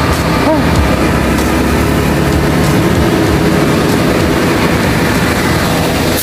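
Heavy six-wheel dump truck's engine running close by: a steady, loud, low rumble.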